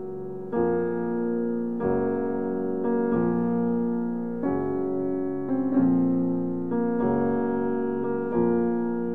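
Background piano music: slow chords struck one after another, a new chord roughly every second, each fading before the next.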